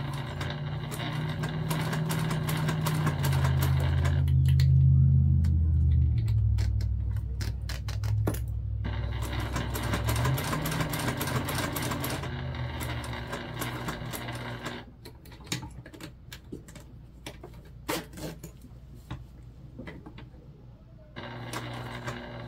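Domestic sewing machine top-stitching through vinyl, running in stretches with fine rapid clicks, then going quieter for several seconds in the last third before starting again near the end.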